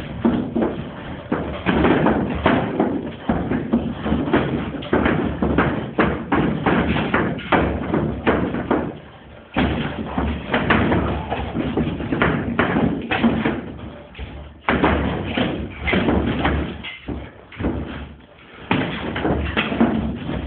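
Boxing gloves thudding in quick irregular runs of punches, with feet moving on the gym floor, over music playing in the background.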